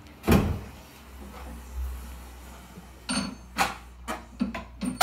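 Flip-top tool cabinet being flipped back over and latched: a loud wooden clunk just after the start, then a run of knocks and clicks from about three seconds in.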